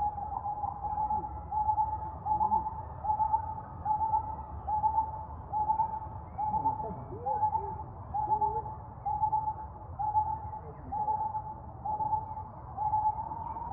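A bird calling a short hooting note over and over at an even pace, about three notes every two seconds.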